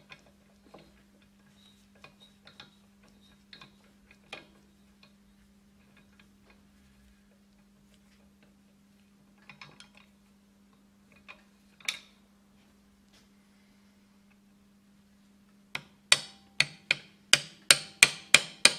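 Light clicks and taps of metal compressor parts being handled, then, about three-quarters of the way in, a rapid series of hammer blows on a steel punch, about four a second, driving apart a split clamp on the crank of an Atlas Copco LFX oil-free compressor.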